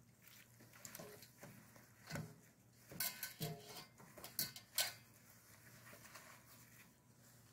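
Faint handling noise: scattered small clicks and rustles, with a cluster of sharper clicks around the middle.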